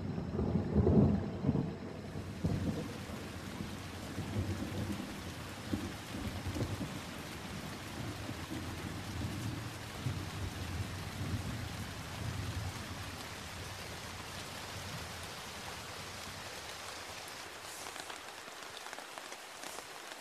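A rainforest downpour: steady rain pouring down, with thunder rumbling under it. The thunder is loudest about a second in and dies away after about a dozen seconds, leaving the rain alone.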